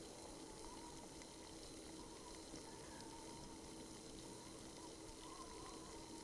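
Faint, steady hiss and simmer of milk heating in a steel pot on a gas stove burner.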